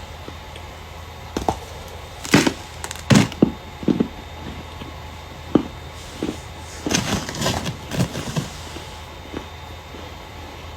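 Starch being crushed: irregular crunchy, squeaky crackles in two busy spells, a couple of seconds in and again near the end.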